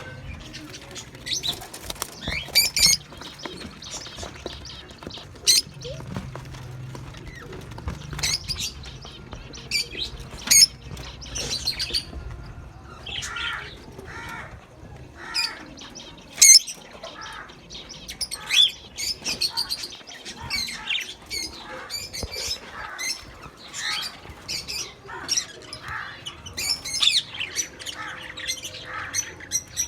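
A flock of budgerigars chirping and chattering, with many short, high calls overlapping all through.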